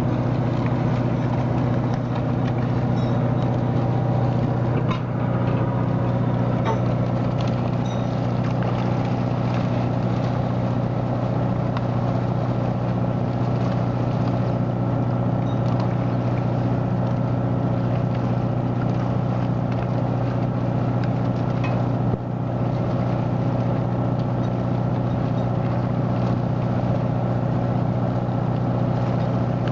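A salmon purse seiner's engine running with a steady, unchanging drone while the seine net is hauled in alongside.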